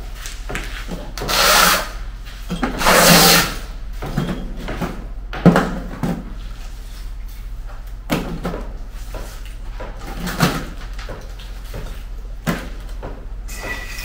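Chunks of broken concrete rubble being picked up and dropped into a plastic bucket: separate knocks and clatters every second or two, with two longer, louder clattering rushes in the first few seconds.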